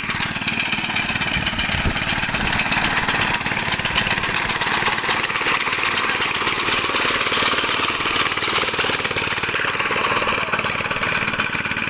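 A small engine running steadily at an even speed, with a fast, buzzing firing rhythm.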